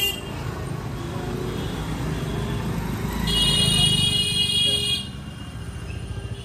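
Low rumble of street traffic, with a vehicle horn sounding in a short honk at the start and then held for about a second and a half a little past the middle.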